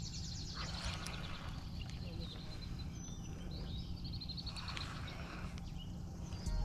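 Outdoor pond ambience: a steady low background rumble, with a bird giving a high, rapid trill twice, near the start and about four seconds in.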